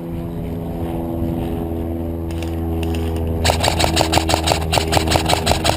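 An engine running steadily. About three and a half seconds in, a rapid, regular clatter starts over it, about seven strokes a second.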